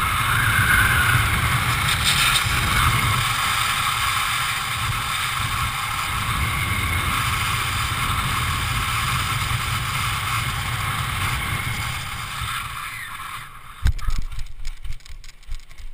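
Wind rushing over a helmet-mounted camera's microphone as a skydiver descends under an open parachute canopy. The rush dies down about thirteen seconds in as the canopy comes in low to land, followed by a few irregular knocks and rustles.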